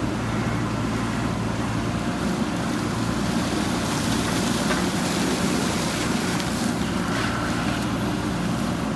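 JCB backhoe loader's diesel engine running steadily, with a brighter rushing noise rising over it midway.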